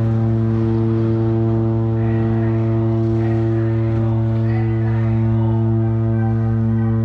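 The MSC Opera cruise ship's horn sounding one long, unbroken low blast at a steady pitch. A continuous blast like this is the danger warning from a ship bearing down out of control.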